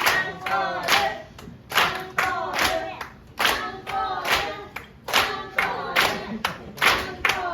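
Audience clapping in a steady rhythm, about two claps a second, with voices singing or chanting along in time.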